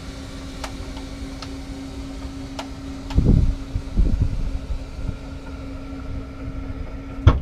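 Electro-hydraulic lift of a boat's engine hatch running with a steady hum as the hatch lowers, with a few light clicks and two low thumps about three and four seconds in as it comes down onto its seat. A sharp click comes near the end.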